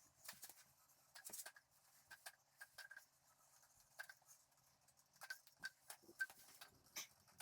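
Near silence with faint, scattered clicks and light taps, a few with a short high ring.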